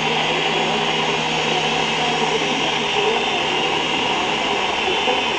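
Syma S107 toy RC helicopter's small electric motors and coaxial counter-rotating rotors whirring steadily in flight.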